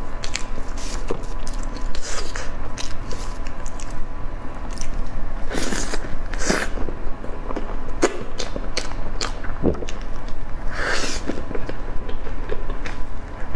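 Close-miked eating sounds of a soft dumpling pouch being bitten and chewed: moist mouth clicks and smacks throughout, with three short, louder hissing sounds, one about a third of the way in, one just after it, and one near the end.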